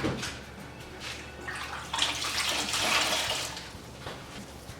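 Wet sanding of car paint by hand: wet abrasive paper swishing over the roof panel with water, in stretches of rubbing, longest near the middle, as the blended paint patch is cut back.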